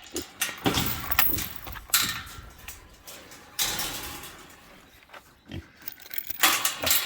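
Young boar pigs grunting in a series of short, noisy bursts.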